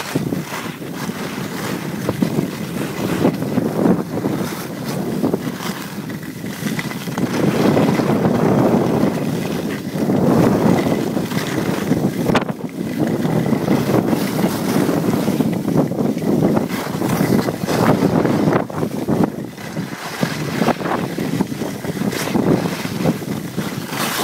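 Wind rushing over a handheld camera's microphone during a fast downhill ski run, swelling and easing in gusts, with scattered knocks from the camera being jostled.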